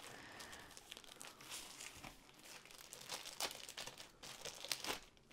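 Clear plastic film crinkling and crackling as it is pulled off a rolled canvas, with a few sharper crackles in the second half.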